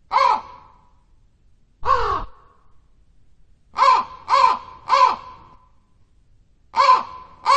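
A crow cawing: seven short caws, mostly one at a time about two seconds apart, with a quick run of three in the middle.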